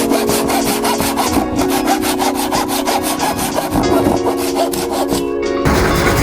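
Japanese folding pull saw (ZET SAW Tuck-in Carpentry P-240, 240 mm blade) cutting through wood in fast, even rasping strokes. The sound changes abruptly shortly before the end.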